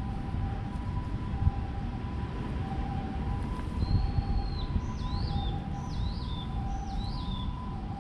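An emergency vehicle's two-tone siren, alternating steadily between a higher and a lower pitch, over a constant low rumble. From about four seconds in, a bird calls: one held whistle, then three short downward-sweeping notes.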